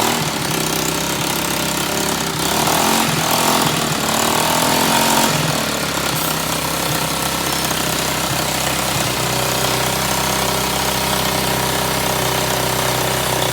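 Motorbike engine running, its rear wheel turning a belt that drives a piston air compressor; the engine and compressor keep up a steady mechanical running, a little louder between about two and five seconds in.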